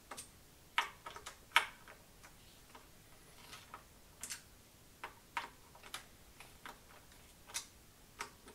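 Faint, irregular light clicks and ticks of a Prestacycle Torqkey T-handle torque tool and its bit working screws loose on a bicycle handlebar clamp.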